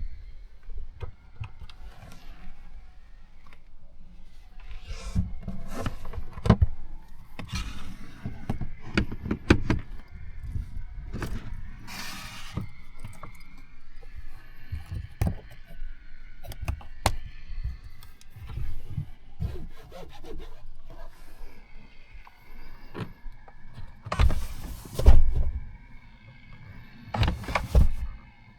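Irregular clicks, knocks and scrapes with low thuds, as of a car's doors, panels and fittings being handled, with a cluster of louder thuds near the end.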